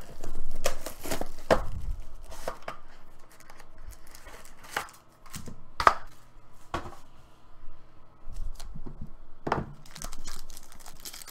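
Plastic shrink wrap being torn and crinkled off a sealed trading-card hobby box by hand, with separate taps and knocks as the box is handled on a table, the sharpest about six seconds in.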